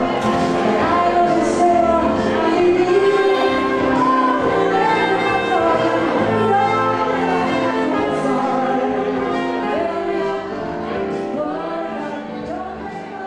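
Live pop music from a keyboard-and-saxophone duo: a woman singing over keyboard backing, with a saxophone playing along. The music gets gradually quieter over the last few seconds.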